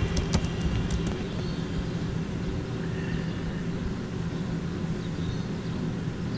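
A steady low mechanical hum in the background, with a few faint clicks in the first second.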